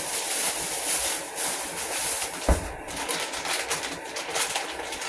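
Plastic bag crinkling and rustling as it is handled and opened, many small crackles, with one dull thump about two and a half seconds in.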